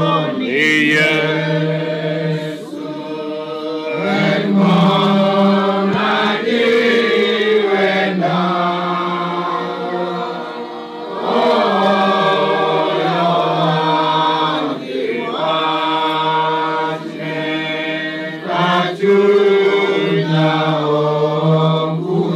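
Several men's voices chanting together in unison, reading from books into microphones, in long sustained phrases with brief breaths between them.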